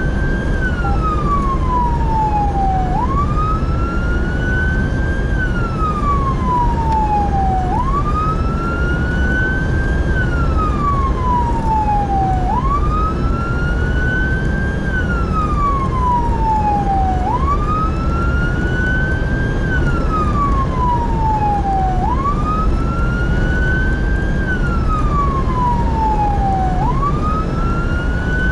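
Emergency vehicle siren sounding a slow wail, gliding up and down in pitch about every five seconds, heard from inside the moving vehicle over steady road and engine noise.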